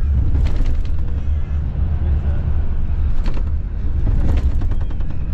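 Steady low rumble of a Marcopolo Paradiso G8 1800 DD double-decker coach at highway speed, heard inside the passenger cabin: engine and road noise. Brief rattles come about half a second in, at three seconds and at four seconds.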